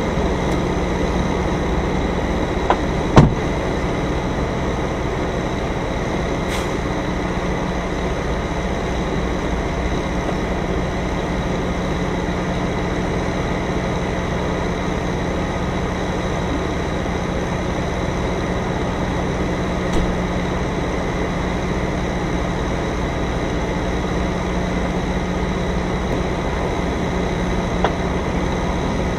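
Semi-truck's diesel engine running steadily at low speed, heard from inside the cab as the rig is slowly maneuvered. A sharp click sounds about three seconds in, and fainter clicks come later.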